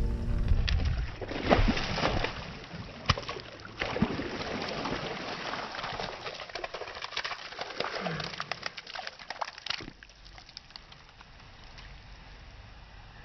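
Water sloshing and splashing with scattered knocks and clicks, busy for about ten seconds and then dying down to a faint hiss.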